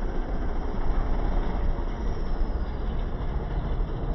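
Farmtrac 60 T20 tractor's diesel engine running steadily under load as the tractor drives on its rear wheels in a wheelie, a dense, heavy, low engine noise with no let-up.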